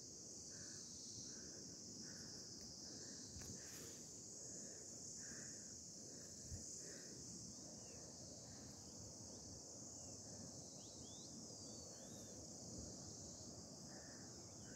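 Faint, steady high-pitched chorus of insects in a mountain pine forest, with softer short chirps about twice a second beneath it and a few thin whistles about two-thirds of the way through.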